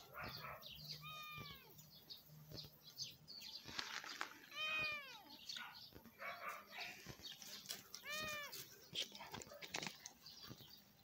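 A cat meowing three times, about a second, five seconds and eight seconds in; each meow rises and then falls in pitch. Light scuffling and small clicks run underneath.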